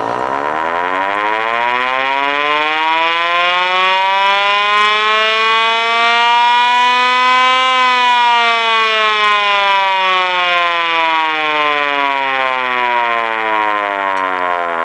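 Vintage Mars fire engine siren, run off a battery charger, winding up in a slow, steady rise for about eight seconds to a loud wail. It then winds slowly back down, still sounding as it falls.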